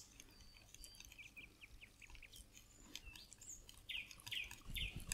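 Faint, squeaky scraping of a utensil stirring thick cream with cherries in a bowl. It comes as even strokes, about two a second, and grows louder near the end.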